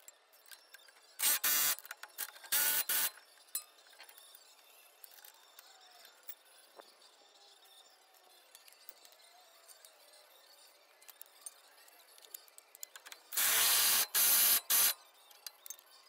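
Cordless impact wrench run in short trigger bursts on suspension hardware. There are a few brief bursts between about one and three seconds in, and a longer run of three bursts near the end, with faint metal clinks in between.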